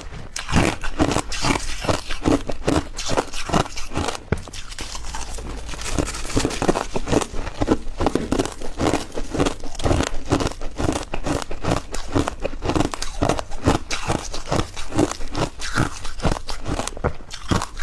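Crushed ice being chewed close to the microphone: loud, crisp crunches in a steady chewing rhythm of about three bites a second.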